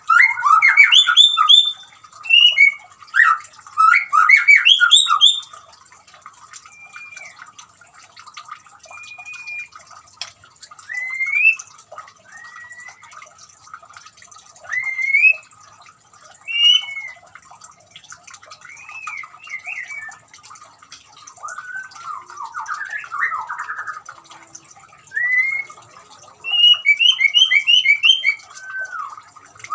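White-rumped shama singing: loud bursts of rapid, varied whistles and chatter at the start and again near the end, with single gliding whistled notes spaced out in between. Faint trickling water runs steadily underneath.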